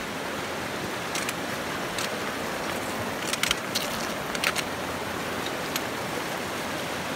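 Steady rush of creek water running over rocks, with several sharp clicks of stones knocking underfoot as someone walks over a rocky riverbed.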